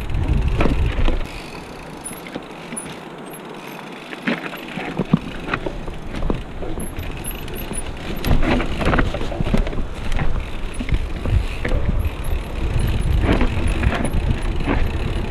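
Mountain bike ridden over a rough trail, the bike clattering with many sharp knocks and rattles over a low rumble. The rumble drops away for a few seconds about a second in, then returns.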